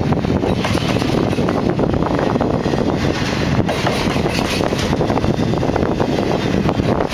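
Double-stack intermodal well cars of a freight train rolling past close by: the steady noise of steel wheels on rail, with many small clicks and clanks from the wheels and cars.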